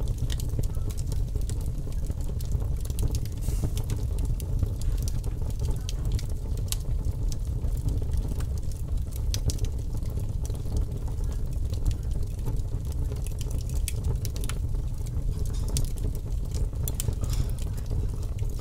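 Fire crackling: scattered sharp pops and snaps over a steady low rumble.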